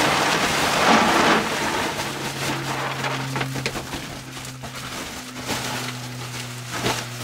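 Alfalfa hay pellets poured from a feed sack into a bucket, a rain-like rush for about the first second and a half. The emptied sack then rustles and crinkles as it is shaken out and folded.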